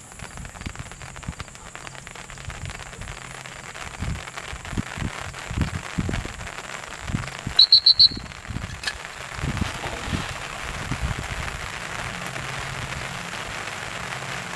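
A dog handler's whistle blown as a quick trill of about five short high toots about halfway through, signalling a retriever swimming in the pond. Low rumbles of wind on the microphone run underneath.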